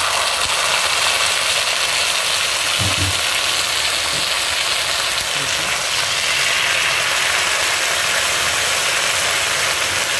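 Chilli sauce sizzling loudly in hot oil in a kadhai over frying garlic, chilli and ginger; the sizzle starts suddenly as the sauce hits the oil and stays steady.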